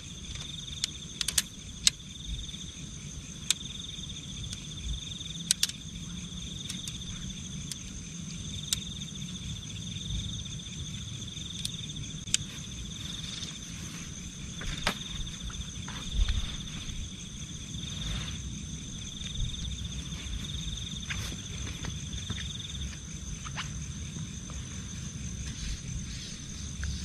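Insects chirring in a forest: one steady high-pitched whine, and a little lower a pulsing trill that drops out near the end. Under them runs a low rumble of wind on the microphone, with scattered light clicks and knocks.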